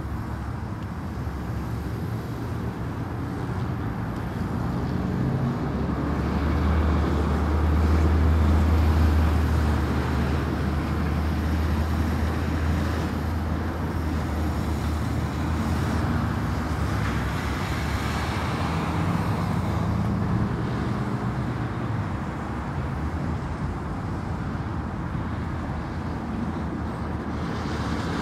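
Steady road traffic noise from a busy highway. A deeper rumble of passing vehicles builds through the first half and then fades back to the general hum.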